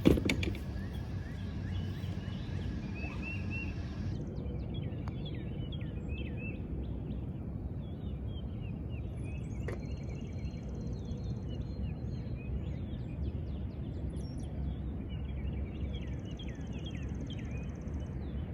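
A golf club strikes a ball once with a sharp crack at the very start, ringing out briefly. After that there is steady open-air rumble with many small birds chirping throughout, and a faint click about ten seconds in.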